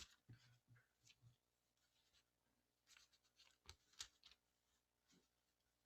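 Near silence with a few faint paper rustles and light taps around the middle, as Bible pages are turned to the next passage.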